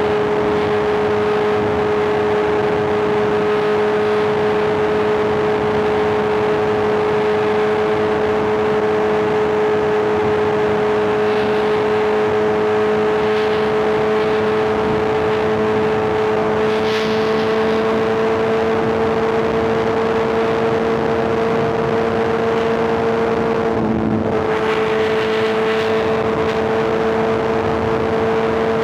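Inline-four superbike engine cruising at steady revs under wind and road rush. The note holds one pitch, edges slightly higher past the middle, and dips briefly once near the end.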